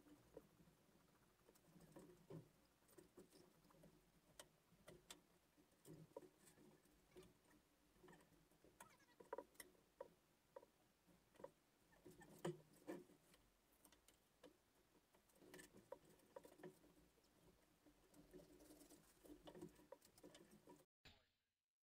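Near silence with faint, irregular clicks and taps of knives and gloved hands working fish on a processing table, over a faint low hum. The sound cuts off shortly before the end.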